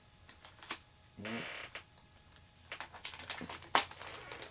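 Strips of Scotch tape being pulled off and applied to a plastic comic book bag: scattered light clicks and crackles of tape and plastic handling, thickening over the last second or so.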